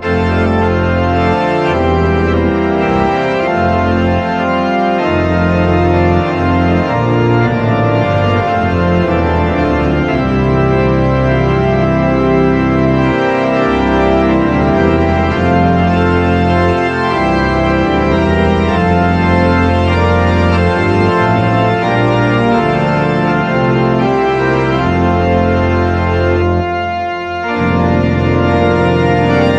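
Organ music: held chords that change every second or two, with a brief break in the sound a little before the end.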